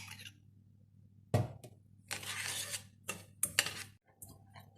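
Spoon knocking and scraping in a thin-bottomed metal saucepan: one knock about a second and a half in, a short scraping rustle, then a few light clinks.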